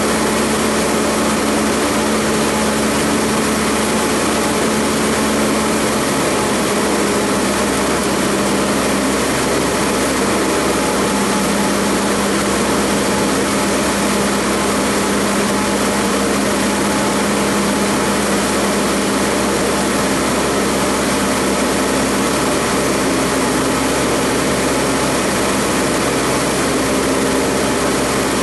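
Steady drone of a Cessna light aircraft's piston engine and propeller heard from inside the cockpit, with a dense hiss of cabin noise, holding an even level during the landing approach.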